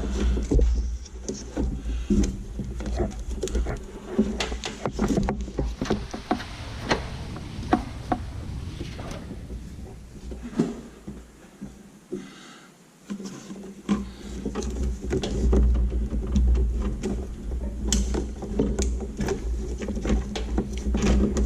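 Irregular clicks, taps and rustling of a clutch cable being pushed and pulled through a motorcycle's frame, over a low rumble, with a brief lull about two-thirds of the way in.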